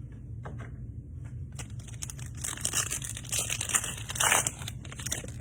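Foil trading-card pack wrapper crinkling as it is torn open, starting about one and a half seconds in.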